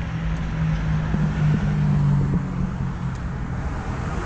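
Street traffic noise with a low, steady hum that swells for about two seconds and then fades.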